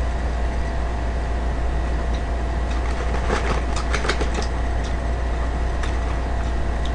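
A steady low hum runs under everything, with paper fast-food burger wrappers and a paper bag crinkling and rustling for a couple of seconds around the middle as hands dig through them.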